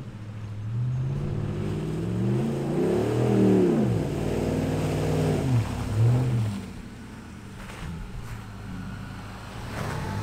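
Ram 1500 pickup's engine revving hard as the truck drives through mud. The pitch rises to a peak about three seconds in and falls, rises briefly twice more, then settles to a lower, steadier note.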